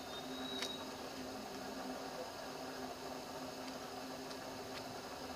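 Steady faint background hum and hiss, with a short high tone ending in a click about half a second in and a few faint ticks later.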